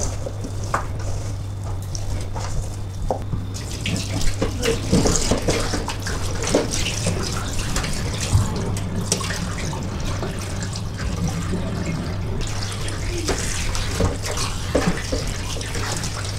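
Tap water running into a stainless-steel sink onto a bowl of raw chicken pieces, with hands rubbing and splashing the chicken as it is washed. The tap comes on about four seconds in, after some handling of the pieces in the bowl.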